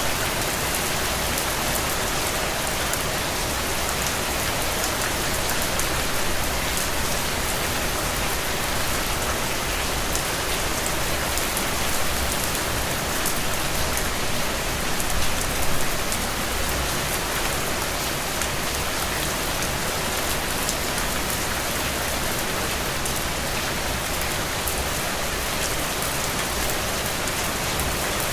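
Steady rain falling, a dense even hiss with fine pattering of drops and a low rumble underneath. It swells briefly about halfway through.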